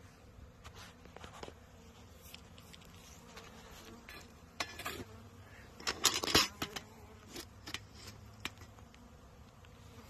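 Honeybees buzzing in a steady hum around the hives during a cleansing flight. Over it come scattered clicks and scrapes of a scoop working wood ash in a bucket, with the loudest clatter about six seconds in.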